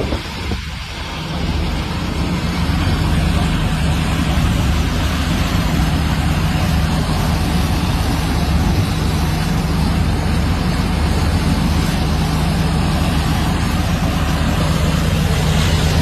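Drilling machine running steadily, its engine giving a continuous loud noise with a constant low hum, dipping briefly about a second in.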